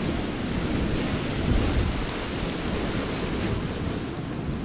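Sea surf washing steadily, with wind buffeting the microphone; a slight swell in level about one and a half seconds in.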